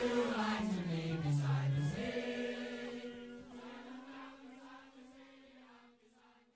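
Massed voices holding a long sung note that drops lower about a second in, comes back up, and then fades away as the song ends.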